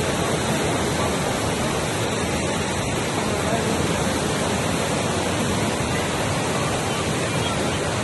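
Fast-flowing floodwater rushing and churning: a steady, dense noise of torrential water.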